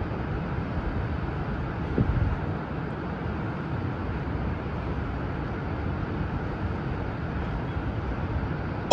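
Steady low rushing noise of open-air ambience, with one short low thump about two seconds in.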